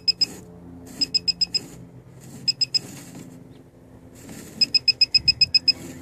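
Handheld circuit breaker finder receiver beeping in rapid high-pitched bursts of about eight to ten beeps a second, in four bursts with the longest near the end, as it is held over the breaker carrying the tracer signal. The beeping marks the breaker that feeds the traced outlet.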